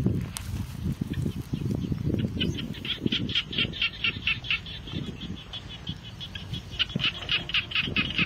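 A bird's rapid chattering call: a quick string of repeated sharp notes about two seconds in, and again near the end, over an uneven low rumble.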